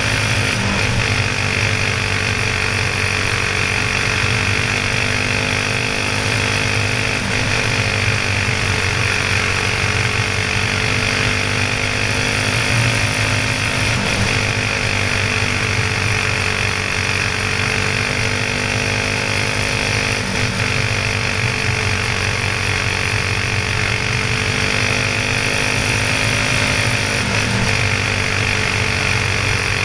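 Honda clone single-cylinder four-stroke go-kart engine running hard through laps of a dirt oval, heard onboard. The engine note holds high and steady, easing slightly and picking back up a few times as the kart goes through the turns.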